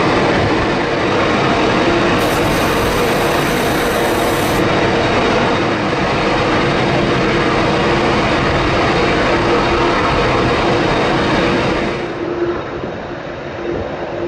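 Boeing 747-400ERF jet engines running: a loud, steady rush with a steady hum under it, easing off somewhat about twelve seconds in.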